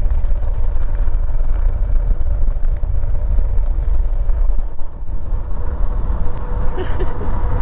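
Heavy wind buffeting on the microphone of an e-bike riding fast at around 24 mph, mixed with tyre noise from the trail. Underneath it is the faint, steady whine of the bike's electric motor running under throttle.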